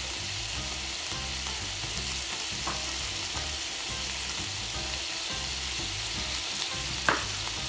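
Chunks of beef sizzling steadily in hot oil in a wide steel pan as they sear and release their juices. A brief tap sounds near the end.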